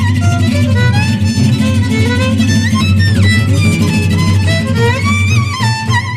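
Soundtrack music: a violin melody sliding between notes over a steady low accompaniment.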